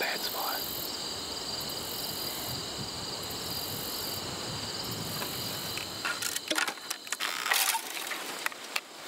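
Steady chorus of crickets trilling at several high pitches. From about six seconds in, irregular clicks and rustling as climbing gear (rope and carabiner) is handled and a hunter climbs down from a tree stand.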